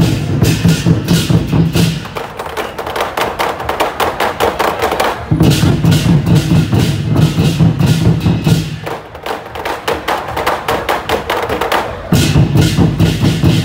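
Traditional temple procession percussion band playing rapid, continuous beats, with heavier low drumming that comes and goes every few seconds.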